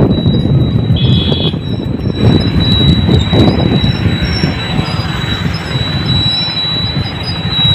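Wind rushing over the microphone with the engine and tyre rumble of a moving motorbike. A short high beep sounds about a second in.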